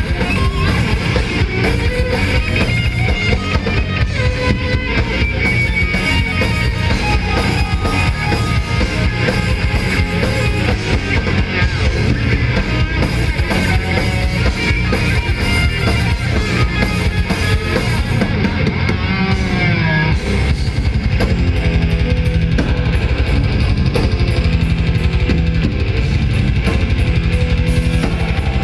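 Death metal band playing live at full volume: distorted electric guitars over fast, dense drums. About two-thirds through, a high guitar line wavers and falls, and the band moves into a lower, repeating riff.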